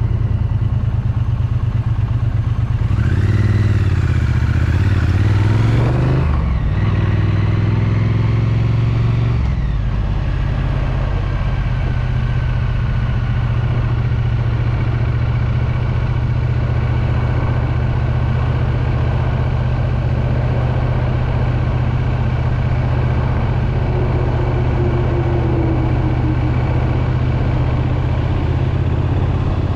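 Triumph Street Twin's 900 cc parallel-twin engine and exhaust under way. Its pitch rises twice in the first ten seconds, then it runs steadily.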